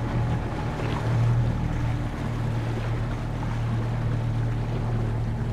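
Boat's outboard motor running at a steady speed, a constant low drone, with water and wind noise over it.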